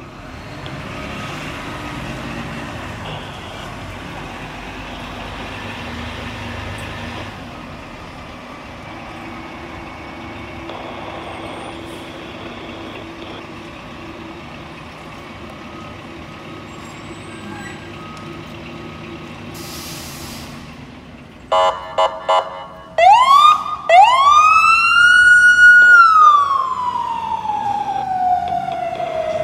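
Fire apparatus responding: a steady low engine rumble for most of the time, then about 21 seconds in a few short horn blasts, followed by a siren winding up twice to a high held pitch and wailing slowly down, starting to rise again at the end.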